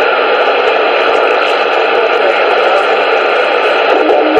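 Steady, loud static hiss with a few faint ticks.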